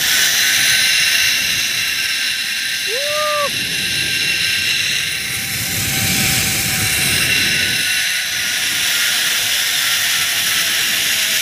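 Zip-line trolley pulleys running along the steel cable: a steady, high whirring hiss, with a low rumble from about five to eight seconds in.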